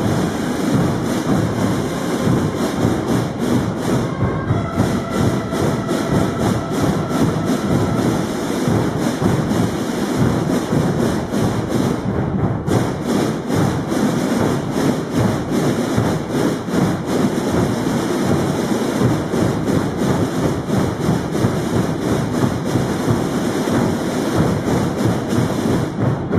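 Massed snare drums and bass drums of a Holy Week brotherhood's drum corps, tambores and bombos, playing a dense, continuous beat.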